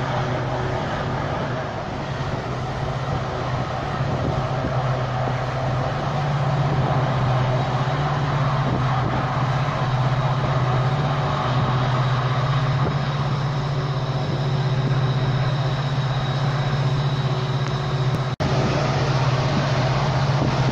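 Diesel-hauled express train running, heard from on board: a steady low drone under the rushing noise of the wheels on the rails. A faint high whine joins about halfway through, and the sound cuts out for an instant near the end.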